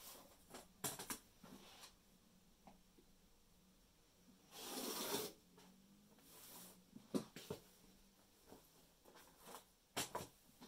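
A rotary cutter rolling through cotton fabric along a plastic quilting ruler on a cutting mat: one swishing cut of under a second about halfway through. Around it, sharp clicks and knocks as the acrylic ruler is set down and shifted on the mat.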